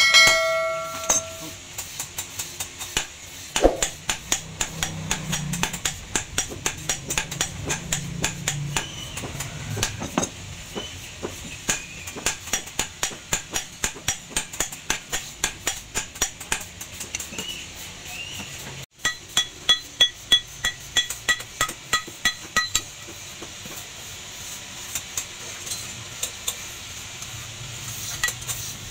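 Hand-hammer blows forging a hot leaf-spring steel cleaver blade on a small steel anvil, in a steady run of about two to three strikes a second. Some blows ring with a clear metallic tone in the second half. A short bell-like chime from the subscribe animation sounds at the very start.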